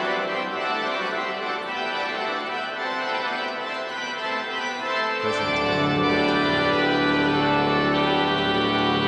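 Organ music: sustained, held chords, with deeper bass notes joining about five seconds in.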